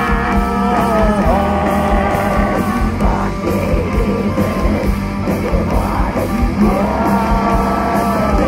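Folk metal band playing live through a PA, with drums, bass and distorted guitars under a melody of long held notes.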